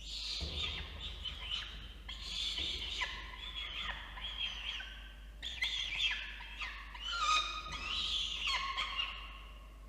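Peregrine falcon chicks begging at the nest box while being fed: a continuous run of high, wavering chirps and squeals, with a soft bump about half a second in.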